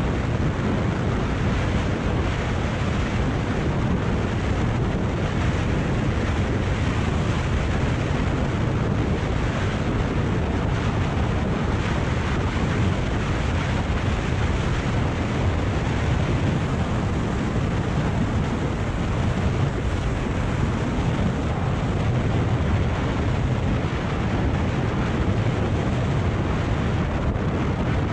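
Steady rush of wind on the microphone of a Kawasaki Ninja 400 riding at road speed, with engine and tyre noise underneath. It is an even, unbroken noise, heaviest in the low end.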